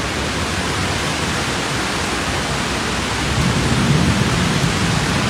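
Steady rush and sloshing of floodwater as cars drive through deep water on a flooded road, pushing up wakes, with the engine noise of the slow traffic more prominent from about three seconds in.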